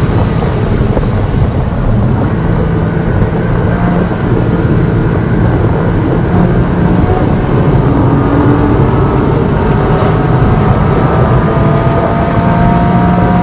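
Car engine running hard at high revs on a race track, heard from inside the cabin with road and wind noise. About six seconds in the engine note breaks off as the car brakes hard and downshifts for a slow corner. The note then climbs steadily as the car accelerates out again.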